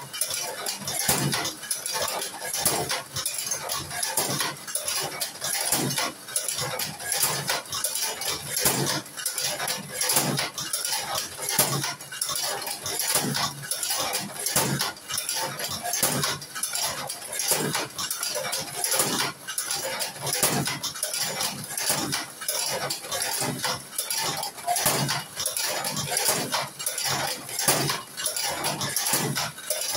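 Tobacco-filling cigarette rolling machine worked over and over, its metal parts clacking and clinking in a continuous, uneven run of knocks.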